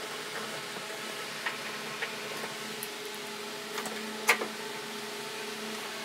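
Hand screwdriver tightening screws into a washing machine's sheet-metal frame: a few light metallic clicks, the loudest about four seconds in, over a faint steady hum.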